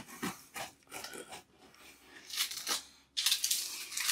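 A knife sawing through the hard-baked top crust of a large bread-dough burger loaf: several short scratchy strokes, then a longer, louder stroke about three seconds in. The top crust is somewhat overbaked.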